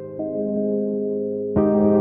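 Background music of held piano or keyboard chords in a slow, ambient style; a new chord comes in about a quarter second in, and a louder one near the end.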